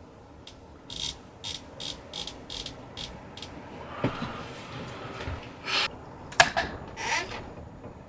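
A run of light mechanical clicks, about three a second, followed by a few louder knocks and handling scrapes on the air rifle, the loudest a single sharp knock in the second half.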